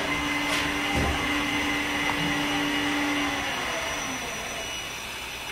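Small elevator car travelling upward, heard from inside the car: a steady machinery whir with a low hum that holds for about three and a half seconds, and a low thump about a second in.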